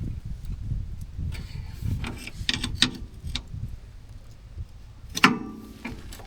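Flathead screwdriver clicking and scraping against metal parts while prying at a cover under a Honda Pioneer 1000, then one sharp metallic clank with a short ring about five seconds in.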